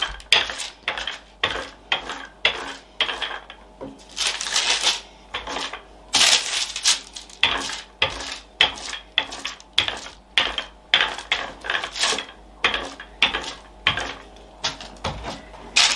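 Wooden rolling pin rolling out rye dough on baking paper, in repeated back-and-forth strokes about two a second, with a couple of longer swishing passes.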